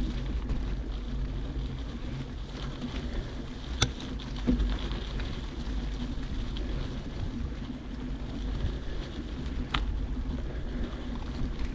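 Bicycle rolling along a dirt trail: a steady low tyre-and-wind rumble on the microphone, with a couple of sharp clicks or knocks from the bike about four and ten seconds in.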